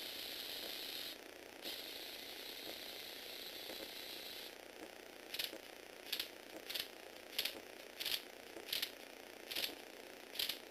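Lego Technic 8043 excavator's Power Functions motors and gear train running with a steady high whirring that drops out briefly about a second in and stops a little before halfway. Then comes a series of about eight sharp ratcheting clicks, roughly 0.7 s apart.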